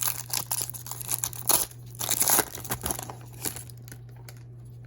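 Plastic wrapper of a trading-card pack being torn open and crinkled by hand, a dense run of crackles that thins out after about three and a half seconds.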